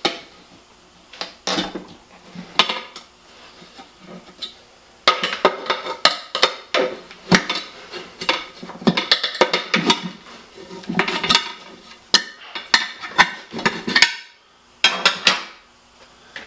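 Steel tire irons clanking and scraping against a motorcycle wheel's metal rim while a soaped tire bead is levered over the rim edge. There are scattered clinks at first, then rapid, busy clanking from about five seconds in, with a short pause near the end.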